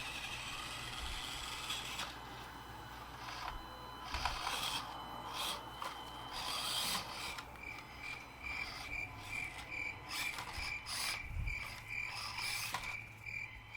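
Axial SCX24 1/24-scale micro crawler running stock out of the box: its small brushed motor and gears whine as it drives, starting, stopping and changing pitch, with rubbing and scraping as it crawls. In the second half a high tone pulses about three times a second.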